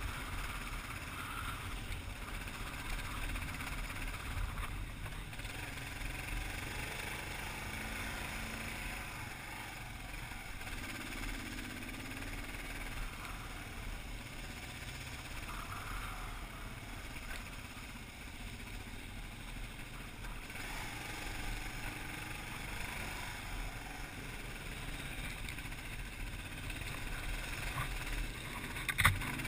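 Kawasaki KLR650 single-cylinder motorcycle engine running at trail speed over a rough dirt track, under a steady rush of wind and road noise on the helmet-mounted camera. A single sharp knock near the end.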